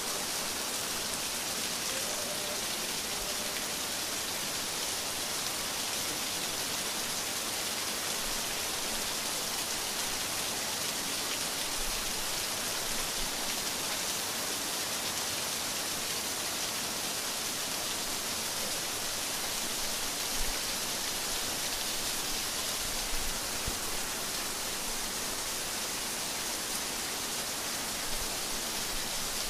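Steady rainfall: an even, continuous hiss of rain, with a few faint low thumps.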